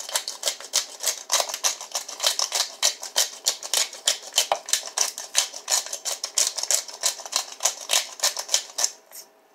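Pepper grinder being twisted to grind black pepper, a fast run of dry crackling clicks that stops shortly before the end.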